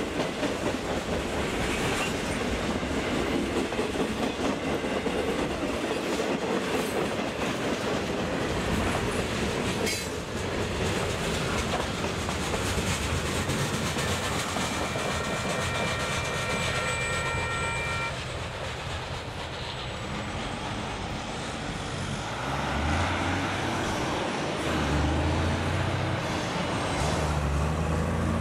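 Freight cars rolling past at speed: a steady rumble with the clatter of wheels over rail joints. For about four seconds midway a steady high wheel squeal rings over it. In the last few seconds, after the train has gone by, a low uneven rumble remains.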